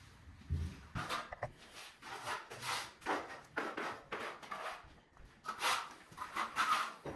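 Footsteps scuffing across electric underfloor heating mats laid on the floor, at roughly two steps a second.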